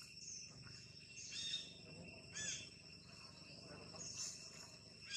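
Insects droning steadily in the trees, with a few short, high chirps about one and a half, two and a half and four seconds in.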